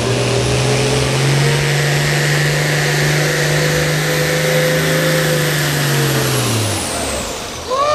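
Turbocharged diesel engine of an International Harvester pulling tractor running flat out under load, pulling the sled: a steady engine note with a high turbo whistle over it. About seven seconds in, the engine note and the whistle fall in pitch as the throttle comes off, and a sudden louder sound sweeps up and down in pitch right at the end.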